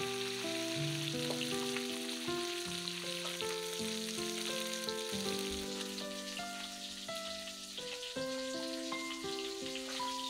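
Small whole fish sizzling as they fry in hot oil in an iron wok, turned now and then with a spatula. An instrumental melody of held notes plays over it.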